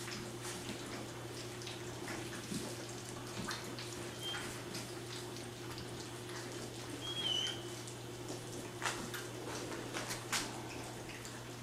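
A litter of three-week-old Labrador retriever puppies lapping and slurping wet gruel from shallow pans: a busy, continuous patter of small wet smacks and clicks. A short high squeak comes about four seconds in and another about seven seconds in.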